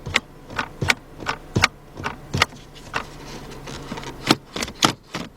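Gear shifter assembly being worked back and forth by hand, giving sharp mechanical clicks roughly every three-quarters of a second and a quicker run of clicks near the end; the shifter mechanism is broken inside and will not let the car go into gear.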